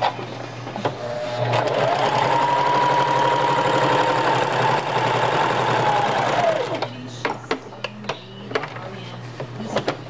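Singer electric sewing machine stitching through diaper fabric: the motor whine rises as it speeds up about a second and a half in, runs steadily, then winds down and stops about two-thirds of the way through. A few light clicks follow as the fabric is handled.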